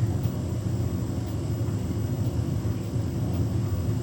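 Beko WTK104121W washing machine's drum turning with a steady low rumble as it tries to get into spin with an unbalanced load of bedding, which keeps it from spinning up.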